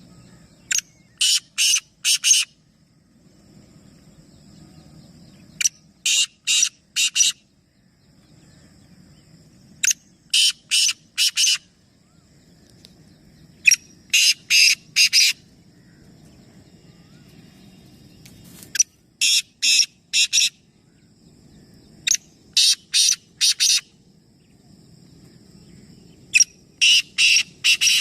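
A bird calling in loud, repeated phrases of three to five short notes, a phrase about every four seconds.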